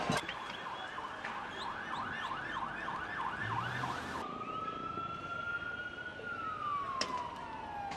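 Police vehicle sirens: a fast warbling yelp, about three swoops a second, for about four seconds, then an abrupt change to a slow wail that rises slightly and then falls away.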